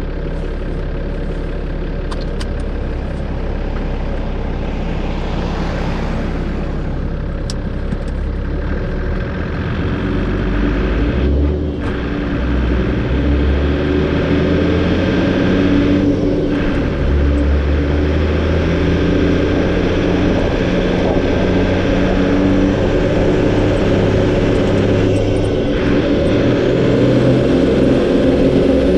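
A four-wheel drive's diesel engine working hard as it drives up a sand dune on lowered tyres, getting steadily louder, with a few brief breaks in its note.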